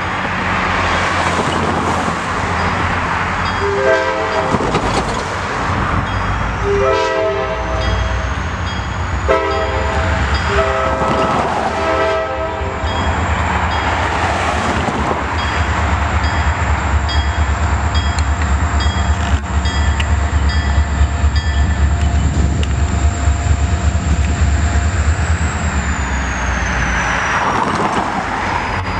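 Diesel freight locomotive's air horn sounding a series of chord blasts, then a steady low rumble as the train passes.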